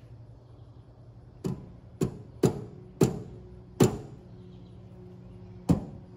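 Six sharp taps of a yellow soft-faced mallet on a Vevor mini lathe's tailstock, unevenly spaced, each leaving a brief metallic ring. They nudge the tailstock sideways to center it on the spindle, checked against a dial indicator.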